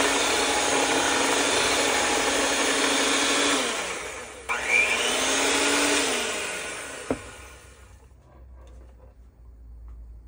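Black+Decker electric hand mixer running with its beaters in a thick peanut butter and cream cheese mixture: a steady motor whine that slows, surges back up briefly, then winds down and stops about seven seconds in. A single sharp click comes as it stops.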